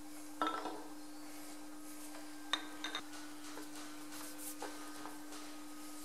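Steel adjustable blade reamer clinking and rattling against a bronze bush as it is set into the bore for hand reaming. There is a short clatter about half a second in, a sharp ringing clink about two and a half seconds in with a second one just after it, and a few light knocks later.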